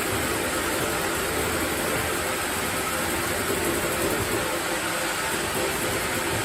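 Sawmill machinery running steadily: a continuous, even mechanical noise with a faint steady hum and no distinct strokes or impacts.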